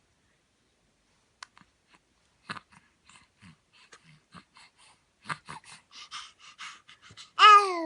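A baby making quick breathy sniffs and small mouth clicks that come faster over several seconds, then a sudden loud voiced cry near the end that drops slightly in pitch.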